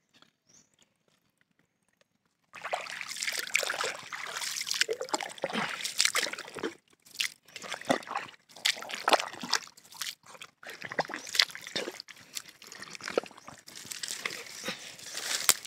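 Footsteps sloshing and squelching through shallow water and wet mud, starting about two and a half seconds in after near quiet and running on in an uneven stream of splashes.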